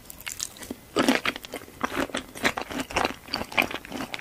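Close-miked ASMR eating: crunchy bites and chewing of crisp food, in irregular crunches about every half second, the loudest about a second in.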